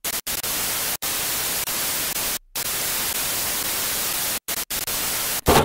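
Television static: a steady, even hiss that cuts out abruptly for a moment several times, with a short louder burst near the end.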